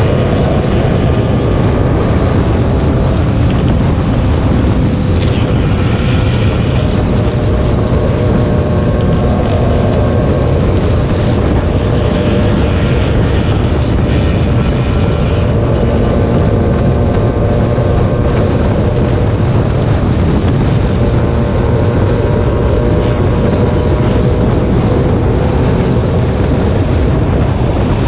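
Vehicle running at steady speed on a highway, with a constant drone of engine and road noise and wind buffeting the microphone.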